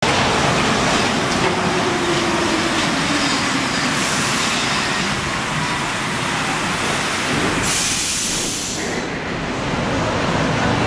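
Rubber-tyred Paris Métro train (MP 59 stock) running along the station platform, a steady loud rumble. A short hiss about eight seconds in.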